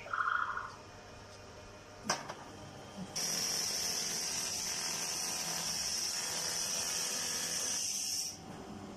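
A short beep near the start and a click at about two seconds, then a 4-in-1 handheld laser welding machine firing with a steady high hiss for about five seconds, starting about three seconds in and cutting off sharply.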